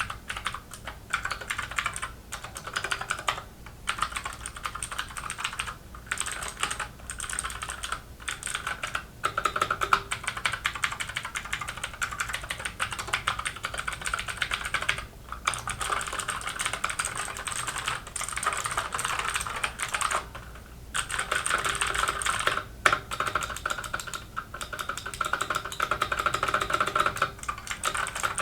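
Fast, continuous typing on a Keychron K6 mechanical keyboard with clicky Gateron Blue switches, a dense stream of sharp key clicks broken by short pauses.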